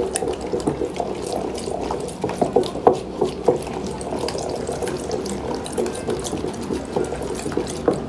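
Thick liquid soap mixture being stirred vigorously with a stick in a plastic bowl: a steady swirling slosh, with a few sharp knocks in the middle.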